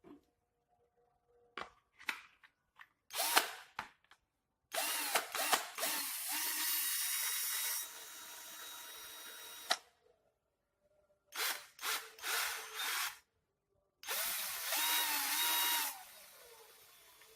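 Doliz BD618 21 V cordless drill running with no load in two bursts of a few seconds each, with a steady motor whine. Short clicks and rattles come before each run, and the first run drops to a quieter level partway through.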